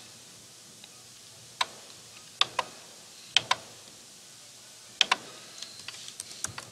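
Computer mouse clicking several times, some clicks in quick pairs, followed near the end by a short run of lighter keyboard keystrokes.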